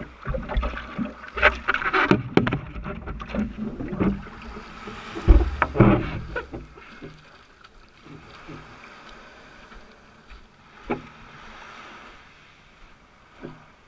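Water splashing and sloshing around a stand-up paddleboard, picked up by a camera mounted on the board, with irregular knocks and bumps on the board. The loudest thump comes a little over five seconds in; after that it settles into a quieter wash of water broken by two sharp knocks.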